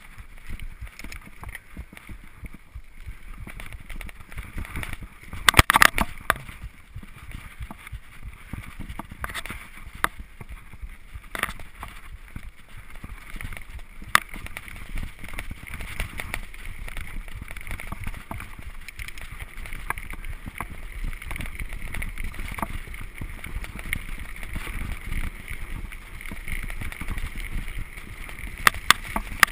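Gary Fisher HiFi Pro Carbon full-suspension mountain bike rolling fast down a dirt singletrack: steady tyre and trail noise with a low rumble. Sharp clatters of the bike jolting over bumps come in a cluster about six seconds in, a few singly after that, and again near the end.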